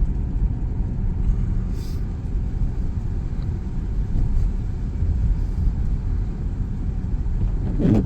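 Steady low rumble of a car heard from inside the cabin: engine and road noise as it creeps slowly on an icy road.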